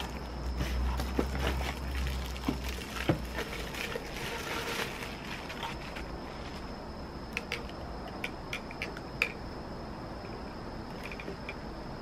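Clear plastic bags crinkling and rustling as vacuum-cleaner extension tubes are pulled out of them and out of a cardboard box. The crinkling is densest in the first five seconds, then gives way to a few light clicks and taps as the tubes are handled.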